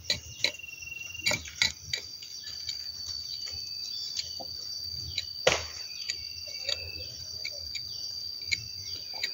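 A knife blade knocking and scraping at a durian trunk's bark, cutting out a stem-canker wound. There are quick sharp knocks in the first two seconds, then sparser scrapes, with one loud knock a little past the middle. From about two seconds in, an insect's steady high-pitched buzz runs underneath.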